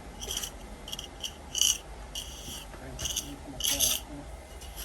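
Steel pointing tool scraping along mortar joints in brickwork: a run of short, high rasping strokes, roughly one every half second.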